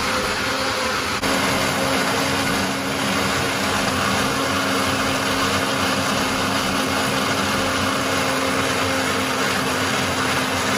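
Electric countertop blender running steadily, puréeing fresh peppers, ginger, garlic and onion; its motor hum steps up in pitch about a second in.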